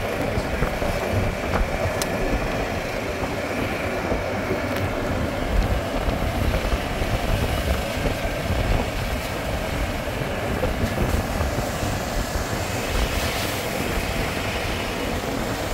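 Steady rumble of a moving open golf cart: tyre, motor and wind noise at a constant pace.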